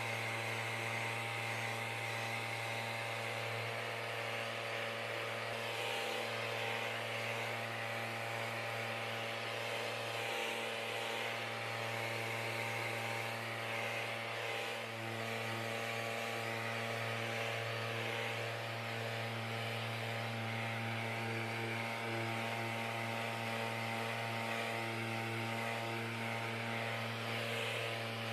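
Festool Rotex RO 90 sander running steadily as it sands the edges of a wooden drawer front through a soft interface pad: an even motor hum with a higher whine over it.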